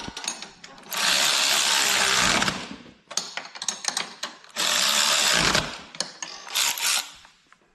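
Power tool run twice, for about a second and a half and then about a second, tightening the bolts on a small four-wheeler, with clicks and clinks of tools and parts between the runs.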